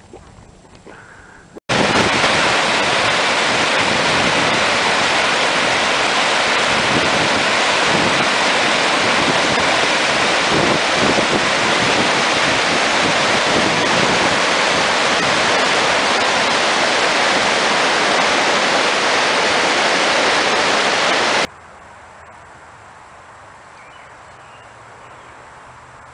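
Whitewater river rapids rushing: a loud, steady noise of churning water that starts abruptly about two seconds in and cuts off abruptly near the end, giving way to faint outdoor background.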